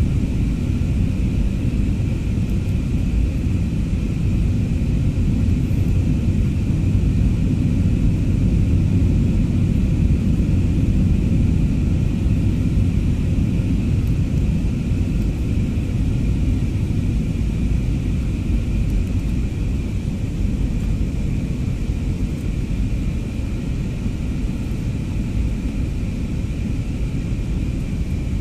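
Steady cabin noise of a jet airliner on approach: a low rumble of engines and airflow heard from inside the cabin, with a faint steady high whine over it.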